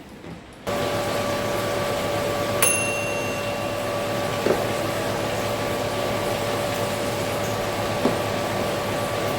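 A small electric kitchen appliance's motor and fan switched on just before a second in, then running with a steady hum and hiss. There is a bright ringing clink a couple of seconds later and a few soft knocks.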